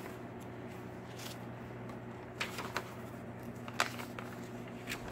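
Paper pages of a handmade notebook insert being turned by hand: a brief papery rustle with each page, about five over the few seconds. A low steady hum runs underneath.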